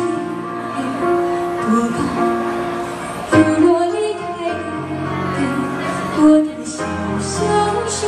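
A woman singing a slow Chinese-language pop ballad into a microphone, amplified over the stage speakers, with instrumental accompaniment. She holds long notes between short breaks in the phrase.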